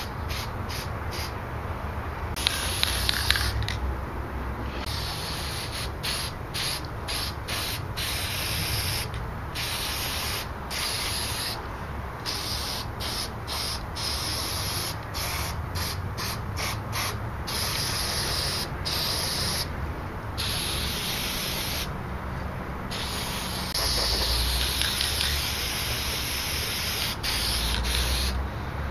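Aerosol spray-paint can hissing in many short bursts that stop and start again and again.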